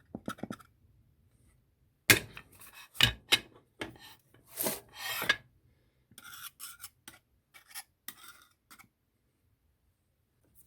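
Metal parts of a drill-press vise scraping and rubbing against each other as they are worked together by hand: a run of loud scraping strokes, then lighter, thinner ones.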